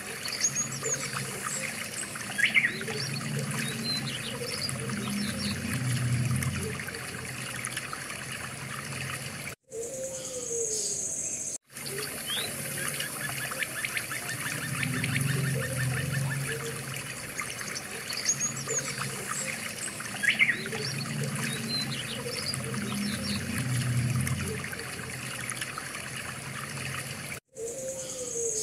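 Nature ambience: water trickling, with scattered short bird chirps and a low rumble that swells and fades. The sound cuts out briefly several times.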